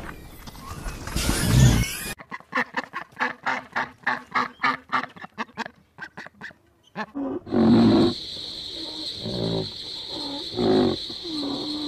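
A fast run of short duck calls, about five a second, then a hippopotamus's deep, loud grunting calls, several in a row over a steady high whine. It opens with a brief low rumbling noise.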